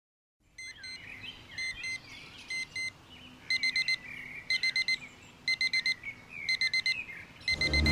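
Digital alarm clock beeping: pairs of high beeps at first, then quick groups of four repeating about once a second, with birds chirping between them. Music starts to come in near the end.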